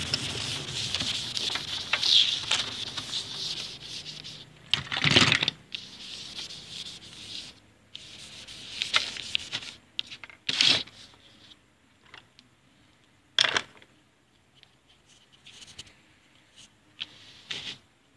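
A hand rubbing across a marker whiteboard, steady at first, as the old drawing is wiped off, then a few separate short scrapes and knocks against the board.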